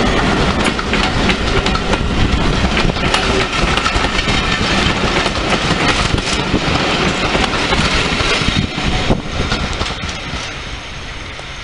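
British Rail Class 14 diesel-hydraulic locomotive passing close by with its engine running, followed by a rake of coaches rolling over the rails. The sound is loud for the first eight seconds or so, then fades as the train draws away.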